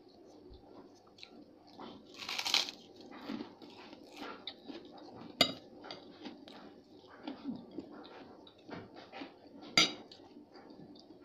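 Close-up eating sounds: chewing and crunching on a kerupuk cracker, with the loudest crunch about two seconds in. A metal fork clinks sharply against a plate twice, about halfway through and near the end.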